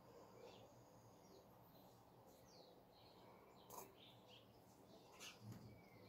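Faint dawn birdsong: scattered short chirps and calls of small birds over a low, steady background hum.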